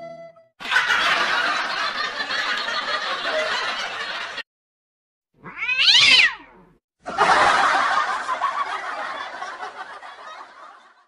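A cat meows once, the call rising and then falling in pitch, about six seconds in. Before and after it comes a dense, rough noise.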